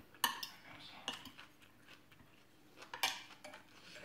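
Metal spoon and fork clinking and scraping against glass dishes while food is scooped up: a few sharp clinks, the loudest about three seconds in.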